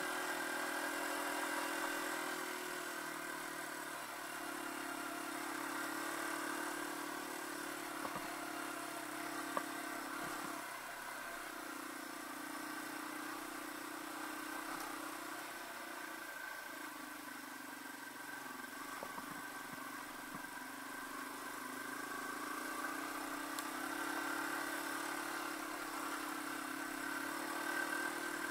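Yamaha TW200's single-cylinder four-stroke engine running while the bike is ridden, its note shifting up and down a little several times with throttle and gear changes. A few clicks stand out near the middle.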